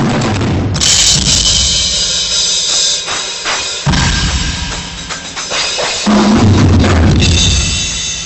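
A rock drum kit played live: heavy bass drum and tom hits with loud cymbal crashes about a second in and again near the end, the ringing fading toward the close.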